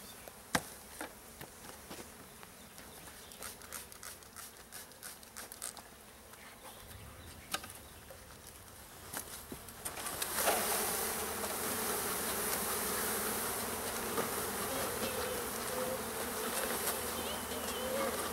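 Honey bees from a package buzzing: quiet at first with a few light knocks, then about ten seconds in the buzzing jumps up to a loud, steady hum.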